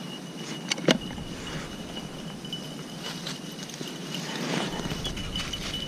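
Two sharp clicks from a break-action shotgun being handled, about a second in, then footsteps rustling through dry leaf litter.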